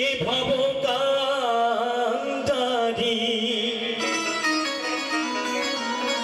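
Live Bengali Baul folk music: a male singer's voice with vibrato over sustained instrumental accompaniment, with a few sharp percussive strikes. The voice drops out about four seconds in while the instruments play on.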